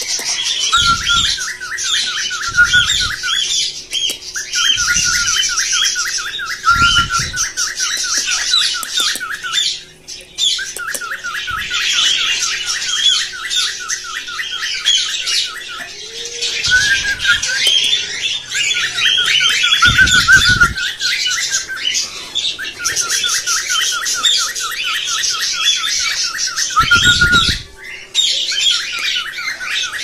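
Caged pet birds chirping and squawking in fast, evenly repeated trills, phrase after phrase with short breaks between. A few dull low thumps come in between.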